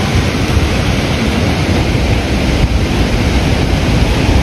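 Hurricane wind and heavy rain: a loud, steady rush of noise, with gusts buffeting the microphone in an uneven low rumble.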